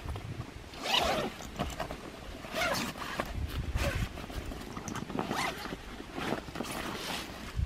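Zip of a carp retention sling being pulled open in several short runs, with rustling of the sling's fabric.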